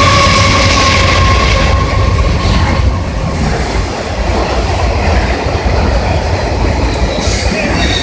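CSX freight train passing close by: the tail of its air horn chord falls slightly in pitch and fades out in the first second or two, leaving the steady rumble and clatter of the freight cars rolling past.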